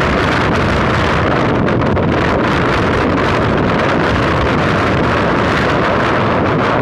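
Wind blowing hard across the microphone: a loud, steady rushing noise.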